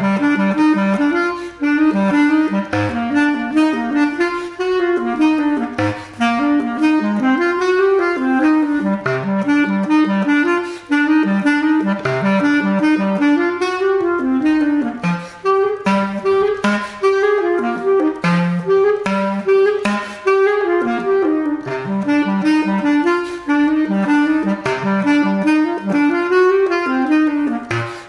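Solo bass clarinet playing a fast, unbroken stream of short notes in repeated rising-and-falling figures, with many sharp percussive attacks.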